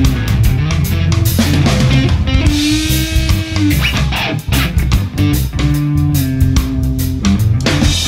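Instrumental stretch of a rock song: guitar and bass over a steady drum beat, with no vocals.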